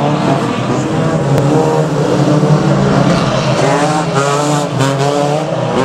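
Engines of several banger racing cars running hard together on the track, their overlapping engine notes rising and falling in pitch as the drivers accelerate and lift off.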